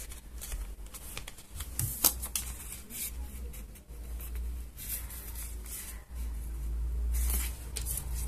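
Thin card being folded in half and creased by hand, rustling and scraping, with a sharp click about two seconds in and a longer, louder stretch of handling near the end.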